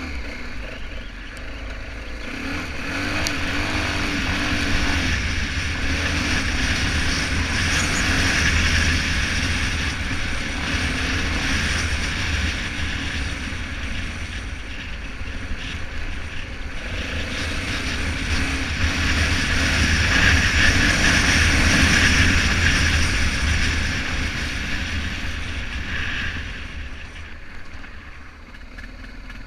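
BMW F650GS motorcycle running under way on a ride, its engine rumble mixed with wind and road noise on the camera's microphone. The sound grows louder twice, about a quarter of the way in and again about two-thirds through, and falls away near the end.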